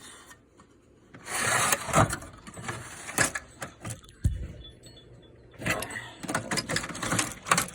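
Metal tools clattering and clinking in a toolbox drawer as they are handled, in irregular bursts, with one dull thump about four seconds in.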